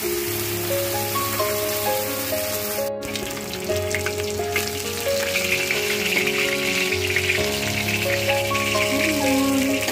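Salmon steaks sizzling as they fry in hot oil in a pan, with background music playing a melody with a bass line over them. The sizzle grows louder about halfway through, and the sound drops out for an instant about three seconds in.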